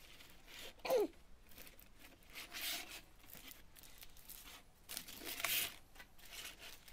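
Flexible aluminium foil duct crinkling and rustling as it is handled, in a few faint short bursts.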